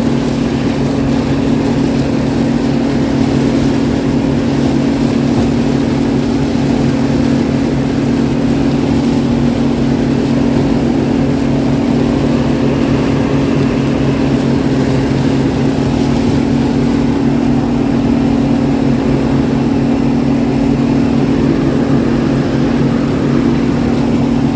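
Combine engine running steadily at working speed, a constant even drone.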